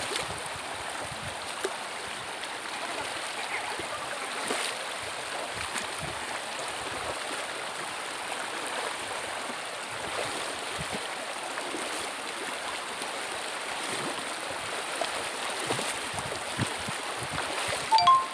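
Shallow river rushing steadily over stones, with occasional splashes of someone wading through it. Near the end comes a brief, loud, high-pitched sound.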